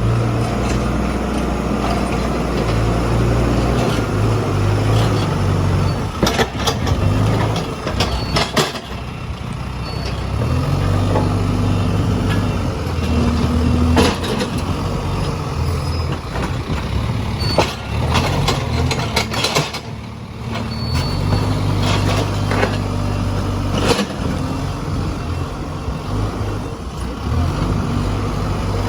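Case 851EX backhoe loader's diesel engine running, its note rising and falling with load and speed, with scattered sharp knocks and clanks.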